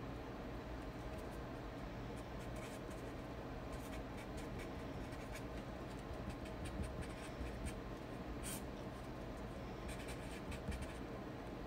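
Faint, irregular light ticks and scratches from small handling at a desk, over a steady low room hum, with one sharper tick about eight and a half seconds in.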